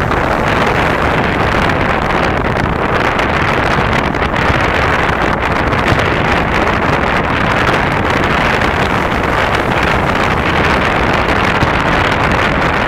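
Steady rushing noise of wind buffeting the microphone on the beach, loud and unbroken, with no distinct firework bangs standing out.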